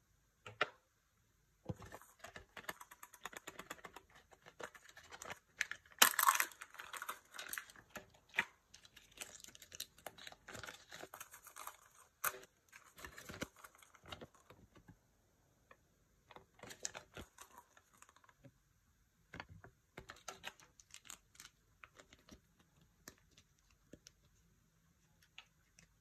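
Close handling of a Kinder Joy toy and its packaging: plastic wrapper crinkling and tearing, a paper leaflet rustling, and small plastic parts clicking as the toy is put together. It comes in irregular bursts and is loudest about six seconds in.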